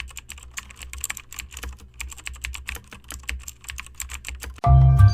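Rapid, irregular light clicking over a low steady hum, like keyboard typing. Music starts abruptly near the end.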